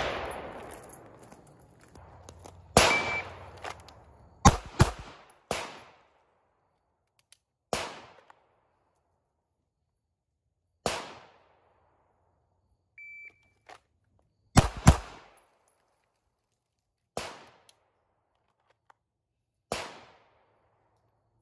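Gunshots at an outdoor range, about ten in all: mostly single shots two to three seconds apart, with a quick pair about two-thirds of the way through, each ringing off with a short echo. A short high electronic beep sounds twice, about three seconds in and about thirteen seconds in.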